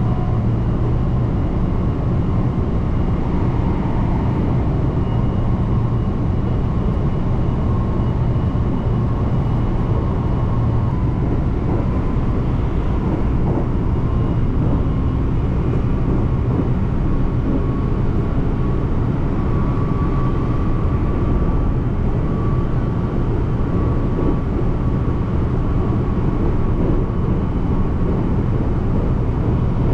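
Steady running noise heard inside a moving electric local train: a low rumble of wheels on rails with a faint, steady whine above it.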